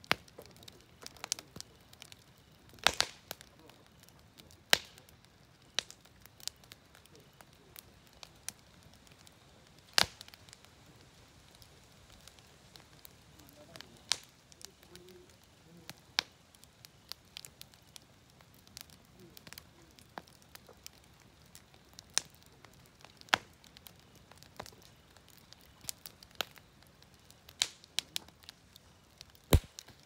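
Wood burning in a campfire, crackling with sharp pops at irregular intervals every second or two over a faint hiss.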